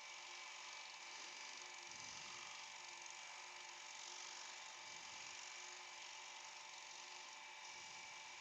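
Faint steady hum and hiss with a thin high whine, even throughout, with no strokes or impacts.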